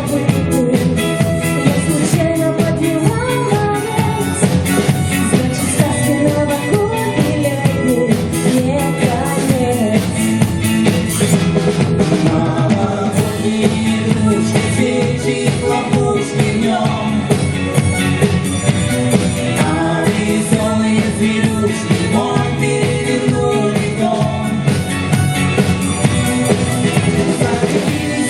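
Pop-rock song played by a band with drum kit and bass, with singing over it.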